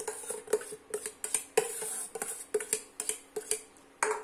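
Steel spoon scraping and knocking against a steel tin and a stainless steel bowl while scooping out a crumbly cooked semolina and mawa mixture. There are many irregular clinks, and the bowl rings faintly after the knocks.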